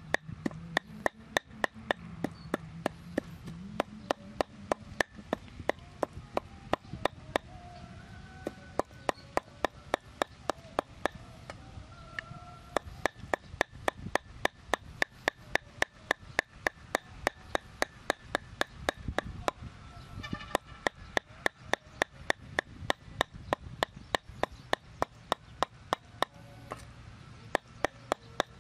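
Meat cleaver chopping raw pork on a round wooden chopping board: sharp repeated knocks at about three strokes a second, broken by a few short pauses, as the meat is minced.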